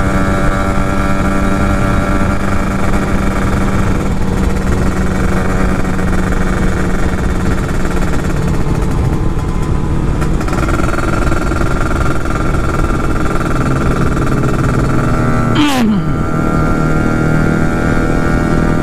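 Kawasaki Ninja RR two-stroke single-cylinder motorcycle engine running at a steady, easy pace while riding, with wind noise on the microphone; the engine is being eased to let it cool after hard running. Near the end the revs drop sharply, then settle steady again.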